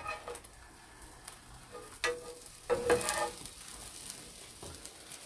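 Rolled egg omelet sizzling faintly in an oiled frying pan, with a few light clicks of the cooking utensils against the pan.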